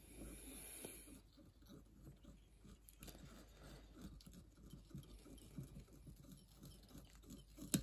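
Faint, irregular soft ticks and rustling as fine wire is wrapped from a bobbin around the shank of a small streamer hook.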